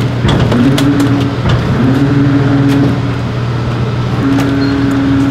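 Porsche 991.2 RSR race car's mid-mounted 4.0-litre flat-six, with open exhaust, idling loudly; its pitch swings up and holds a few times. Scattered sharp clicks and knocks sound over it.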